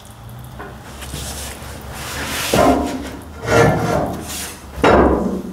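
Rubbing and scraping as a person shifts about in a cramped space under a tractor, with three short grunts of effort.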